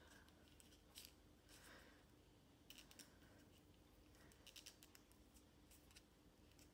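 Near silence, with faint small clicks and scrapes scattered through it as a plastic diamond painting pen is handled and a soft foam grip is pushed onto it.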